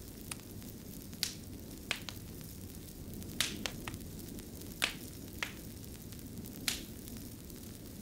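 Wood fire burning in a fireplace: a steady low rumble of flames with irregular sharp crackles and pops from the burning logs, about ten in all, several coming in quick pairs.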